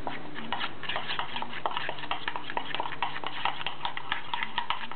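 A spoon stirring a wet egg-and-corn batter in a white ceramic bowl, knocking and scraping against the bowl in quick, uneven clicks.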